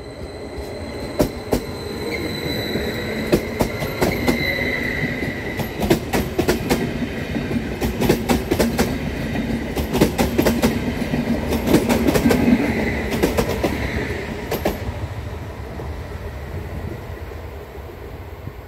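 MÁV class 815 Stadler KISS double-deck electric multiple unit passing close by. Its wheels click over the rail joints under a rumble and a high whine. The sound builds to a peak about ten seconds in, the clicks stop around fifteen seconds in, and it fades as the last car goes by.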